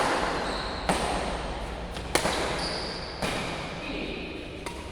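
Badminton rackets striking a shuttlecock in a rally: five sharp smacks roughly a second apart, echoing in a large hall.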